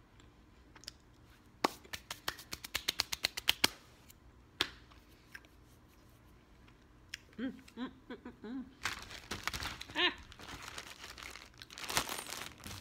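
Crinkling and crackling of a plastic bag or wrapper being handled. About two seconds in comes a quick run of sharp crackles, then more rustling later, with a few short hummed voice sounds in between.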